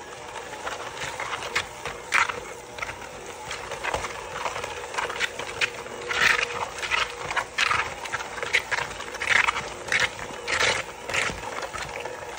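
KitchenAid electric hand mixer running with a steady motor hum, its beaters churning grated carrots into cake batter and clattering against the bowl in irregular knocks that grow louder about halfway through.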